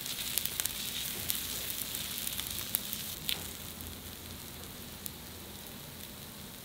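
Pork intestines (gopchang) sizzling as they cook, a steady hiss with scattered pops and crackles, growing fainter over the last few seconds.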